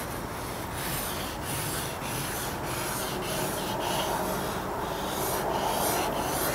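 Marker pen drawing on a large sheet of paper: a quick, irregular run of short rubbing strokes as small circles are sketched.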